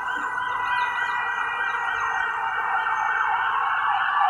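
Emergency vehicle siren sounding in quick repeated rising-and-falling sweeps over a steady high-pitched hum, growing louder toward the end.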